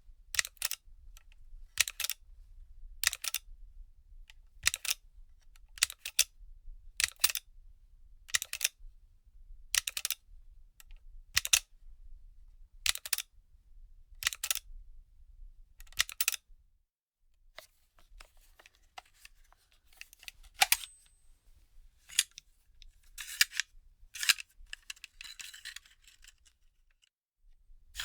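A gun magazine being handled: sharp clicks, roughly one every second and a half, then irregular clicks and a brief rattle near the end.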